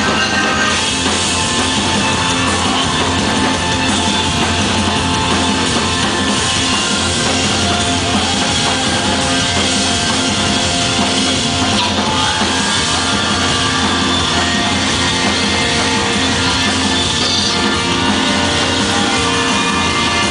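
Loud live music from electronic instruments and a drum kit, played through a concert PA.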